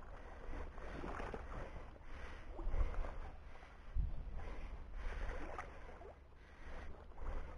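Someone wading through knee-deep marsh water: a string of irregular swishing splashes as the legs push through, over a low wind rumble on the microphone.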